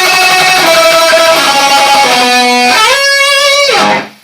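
Electric guitar playing the solo's note pattern dry, without the octave pedal: held notes stepping between pitches, with a slide up near the end, stopping just before the end.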